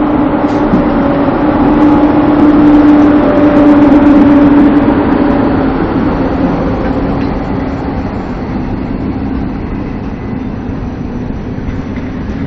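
PKP EP07 electric locomotive passing close by with a steady tonal hum, loudest in the first few seconds and easing off, giving way to the rolling of the passenger coaches behind it.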